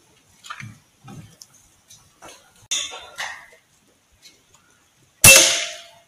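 Air Arms S510 Superlite .22 PCP air rifle firing once about five seconds in: a single sharp crack with a short ringing tail. Before it, faint scratches and rustles.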